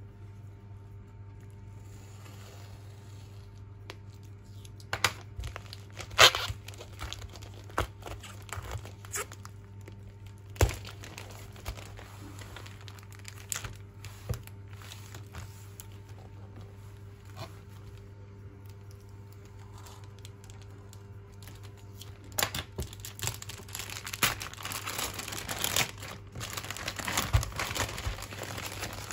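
Plastic courier mailer bags being cut, torn open and handled: scattered sharp crackles and rips of plastic film, then denser crinkling of the bag near the end, over a steady low hum.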